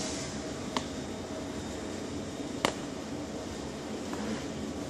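A plastic stirring stick knocks twice against a plastic box while slime is being mixed: a light click about a second in and a sharper one near the middle. Under it runs a steady background hiss.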